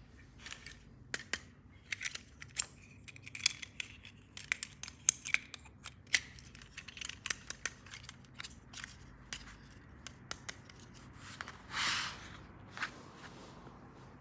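Scissors snipping and plastic toy packaging being handled: a run of sharp, irregular clicks, with a longer rustle near the end.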